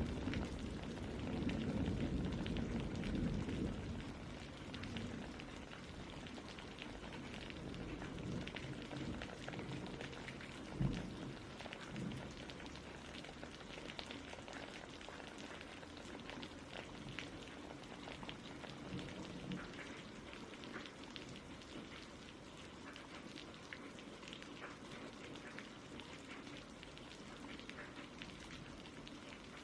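Steady rain falling, an even hiss of many small drops. A low rumble of thunder fades over the first few seconds, and a single short low thump comes about eleven seconds in.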